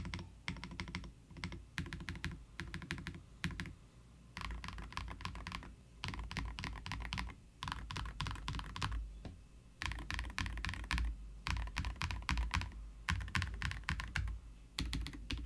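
Mechanical keyboard with ACO Botany linear switches being typed on in quick bursts with short pauses, each keystroke a mid-pitched clack with a clear bottom-out.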